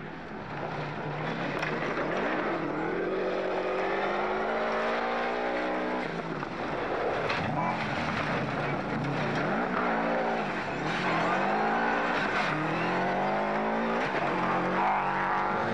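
Subaru Legacy rally car's flat-four engine at full throttle on a gravel stage. Its pitch climbs and drops back several times as it changes gear, over a hiss of tyres on loose gravel.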